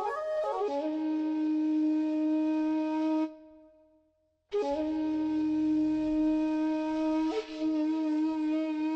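Flute-like wind tone playing two long held phrases, each swooping up into a sustained note, with about a second of silence between them.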